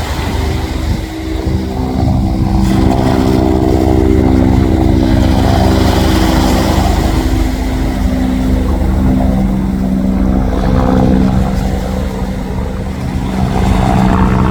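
A motor engine running steadily for the whole stretch, its pitch holding nearly level, over a heavy low rumble.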